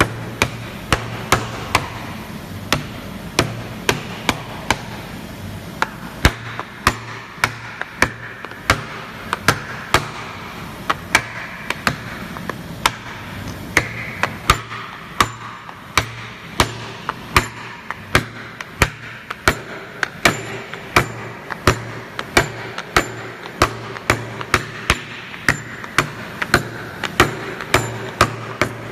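Steel rule die blade being hammered down into the slots of a laser-cut plywood die board, through a wooden block. Sharp, even blows at about two a second, over a low steady machine hum.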